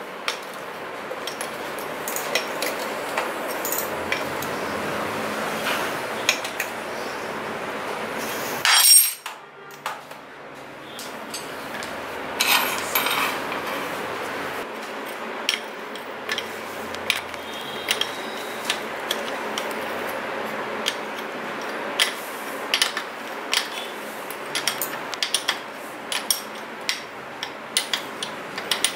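Metal spanner clinking and knocking against a bicycle pedal and steel crank arm as the pedal is threaded on and tightened, in scattered sharp clinks, with one much louder clank about nine seconds in.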